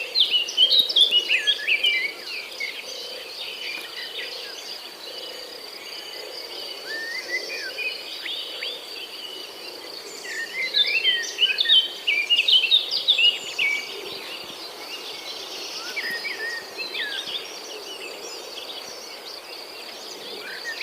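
Birds chirping in quick, busy bouts over a steady high-pitched insect drone. The chirping is loudest at the start and again about halfway through, with quieter calls between.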